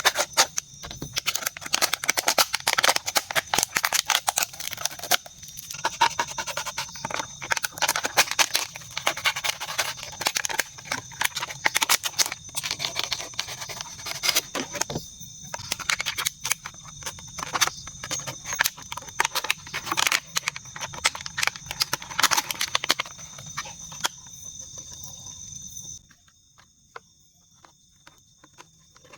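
Dense, irregular crackling and clicking over a steady high drone of night insects such as crickets. The crackling thins out near the end and stops abruptly, leaving only the faint insect drone.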